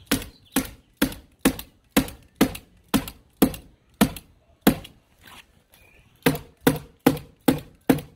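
Hammer tacker driving staples through tar paper into the wall studs: sharp strikes about two a second, ten in a row, then a short pause and five more.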